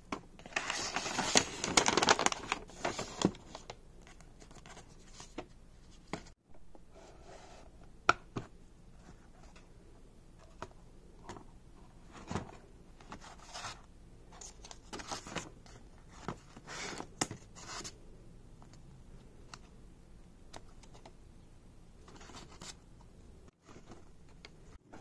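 Hands unwrapping tissue paper and handling stationery in a cardboard box: a louder stretch of paper rustling and crinkling about a second in, then scattered soft rustles, taps and scrapes of paper, card and fabric.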